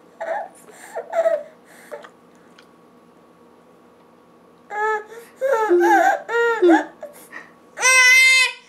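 Baby girl of about eight months vocalising: a few short cry-like sounds, a pause, then a run of wavering, rising-and-falling cries. Near the end comes a loud, high-pitched squeal, her funny noise.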